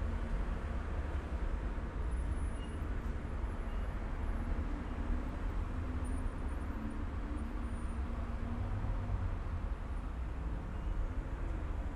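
Steady low rumble of city street traffic as general outdoor background, with no music or voices.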